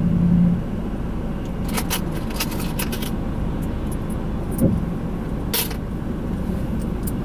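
Steady road and engine noise inside a moving car's cabin, with a few light clicking rattles about two seconds in and again about five and a half seconds in.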